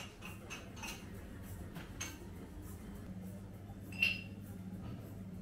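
Quiet indoor shop ambience: a low steady hum with scattered light clicks, and one sharp ringing clink about four seconds in.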